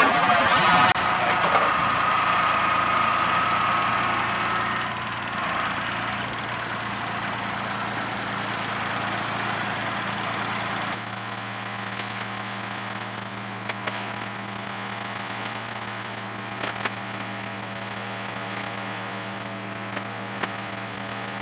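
Engine of a fork-equipped machine running: louder with a steady high whine for the first few seconds, then settling to a steady low idle. A few sharp knocks and clacks sound in the second half.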